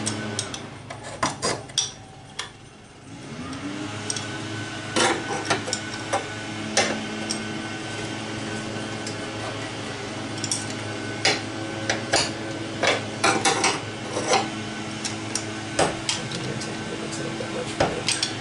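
Steel wrenches clinking on the carburetor hold-down nuts and against each other as the carburetor is snugged down onto a Ford inline six, in scattered sharp metallic clicks. A steady machine hum runs underneath; it fades about two seconds in and winds back up a second later.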